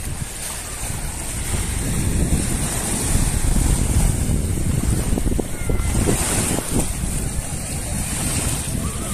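Small sea waves lapping and washing on a sandy shore, with wind buffeting the microphone in a low rumble.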